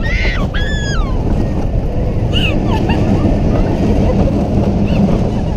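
Mine train roller coaster running along its track, a steady low rumble mixed with wind buffeting the microphone. Riders give a few brief high-pitched shouts, near the start and again about halfway through.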